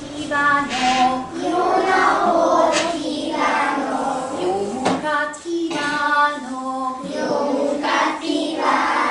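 A group of young children singing a song together with a woman's voice, with a couple of sharp claps about three and five seconds in.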